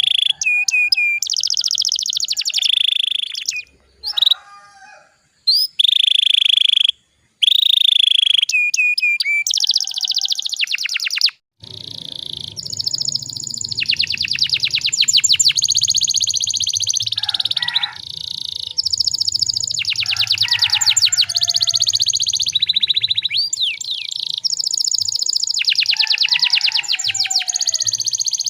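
Domestic canary singing in fast trills and rolling whistled phrases, broken by sudden short silences in the first half. From about twelve seconds in, the song runs on over a faint steady hum.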